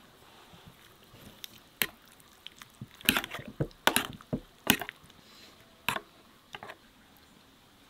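Metal spoon clinking and scraping against an enamel bowl while stirring a thick, creamy mixture. The clicks come irregularly and are busiest in the middle, with a little wet squishing.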